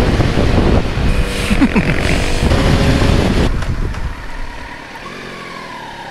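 Kawasaki Z900's inline-four engine running on the move under loud rushing wind and road noise. About three and a half seconds in it drops to a quieter, steadier engine sound as the bike slows.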